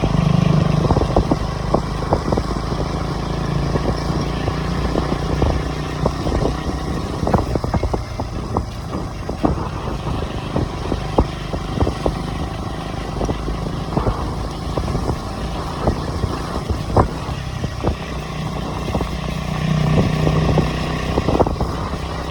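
KTM Duke 250's single-cylinder engine running through its stock exhaust: a steady low engine note with many short, sharp clicks scattered throughout. The note is strongest at the start and again about twenty seconds in.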